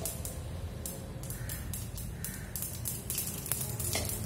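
Mustard seeds spluttering in hot oil for a tempering: a run of irregular sharp crackles and pops over a low steady hum.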